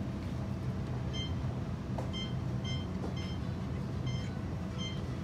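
A steady low hum with a run of short, high electronic beeps, all on the same pitch, coming at uneven intervals from about a second in.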